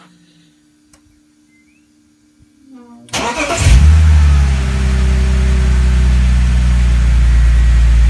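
BMW E46 330Ci's straight-six engine is cranked and catches about three seconds in, then settles into a steady idle. It is a restart shortly after the morning's cold start, when the owner does not expect the hydraulic lifter tick.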